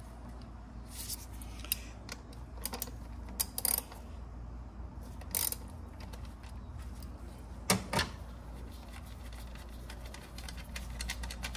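Hand ratchet clicking in short, irregular runs, with small metal clinks, as the bolt holding an ignition coil down is undone.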